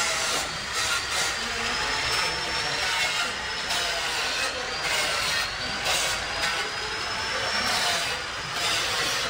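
A power tool running steadily, with a high whine that wavers up and down in pitch over a hiss, during panel replacement bodywork on a car.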